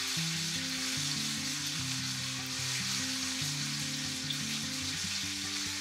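Lamb shoulder searing in a hot frying pan on a gas hob: a steady sizzle, under light background music with a simple stepping melody.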